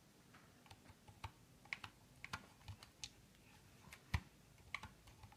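Faint, irregular keystrokes on a computer keyboard: a dozen or so separate taps with uneven gaps between them.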